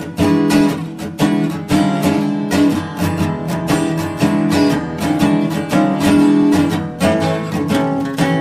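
Background music: strummed acoustic guitar playing a steady rhythm.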